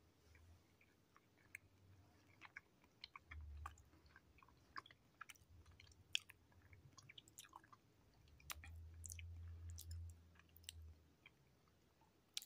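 Faint close-up chewing of a whole pickled quail egg, with soft scattered mouth clicks and smacks. There are two stretches of low rumble, the longer one about two thirds of the way in.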